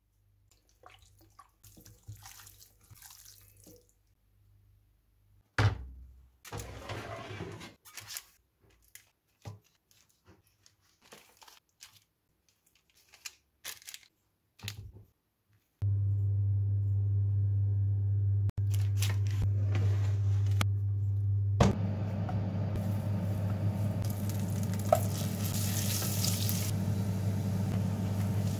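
Scattered clicks and scrapes of food being handled, then a steady low hum. A sudden, louder sizzle starts as something goes into the hot melted butter in a frying pan, and the butter keeps sizzling steadily while it is stirred with a spatula.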